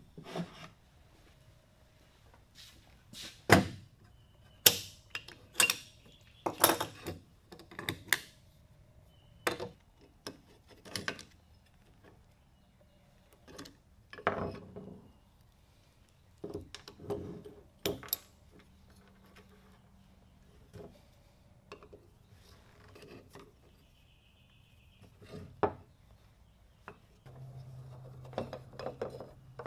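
Old cast-iron Stanley Bailey No. 4 hand plane being taken apart on a wooden workbench: a string of separate metal clinks and knocks as the body, lever cap, blade, chipbreaker and screws are handled and set down on the wood.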